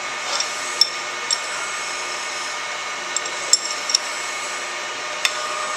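A handful of light metallic clicks from a wrench on the drawbar nut atop a Bridgeport milling machine's spindle as the drawbar is loosened, over a steady background hum.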